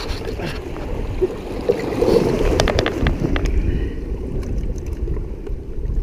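Wind rumbling on the microphone, with scuffs, rustles and clicks of clothing and a hand on rock as someone clambers over mussel-covered rocks. The scuffing stops after about three seconds, leaving the wind rumble.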